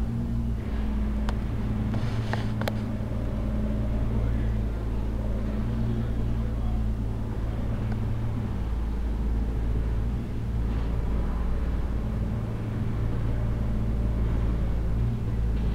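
A steady low engine hum, like a vehicle idling, with a few short clicks about one to three seconds in.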